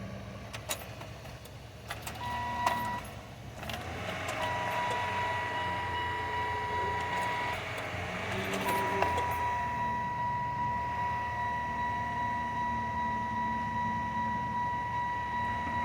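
A car engine running, overlaid by a steady high electronic warning tone. The tone sounds briefly about two seconds in, again for a few seconds, then holds on without a break. A few clicks come in the first few seconds.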